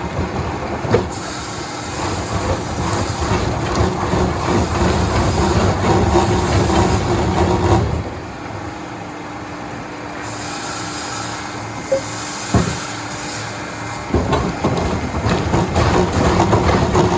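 Sawmill machinery running, with clatter and a few sharp knocks. It quietens for several seconds in the middle, then picks up again.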